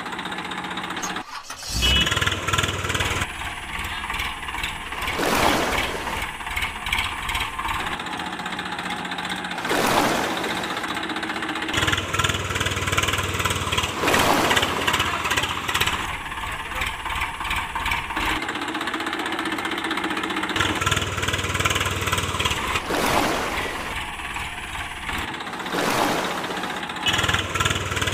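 Tractor engine running, swelling in loudness every few seconds in a repeating, looped pattern; an added engine sound effect rather than anything the toy tractors themselves make.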